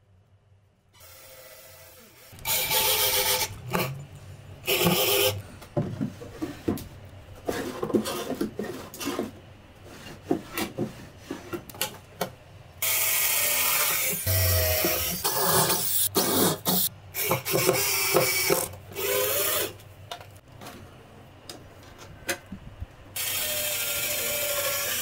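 Cordless drill running in several short bursts, driving screws into wooden drawer-runner strips, with clicks and knocks of laminated particleboard drawer parts being handled and fitted in between.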